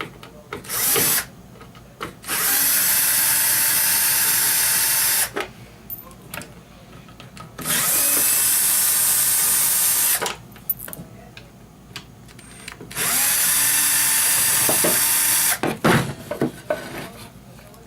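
Electric drill-driver running in one short burst and then three bursts of about three seconds each, with clicks and handling sounds between them, most likely backing screws out of a stereo receiver's case to open it.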